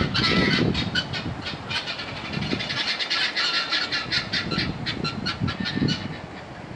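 Birds calling: many short calls packed close together and overlapping, growing quieter near the end.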